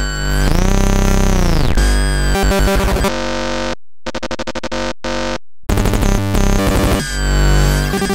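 Oscilloscope music: synthesized stereo waveforms heard as dense, buzzing electronic tones that slide up and down in pitch and change abruptly. The sound cuts out briefly a few times around the middle.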